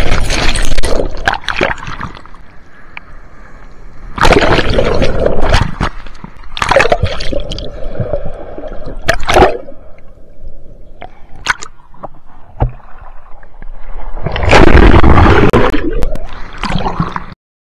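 Shorebreak waves breaking and churning over a camera held underwater: surges of rushing, bubbling water a few seconds apart, about five in all, the longest and loudest near the end. The sound stops abruptly just before the end.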